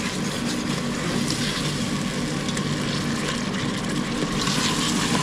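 Tomato masala sizzling in the stainless-steel inner pot of an electric multicooker while a metal ladle stirs it, scraping against the pot now and then, over a steady low hum.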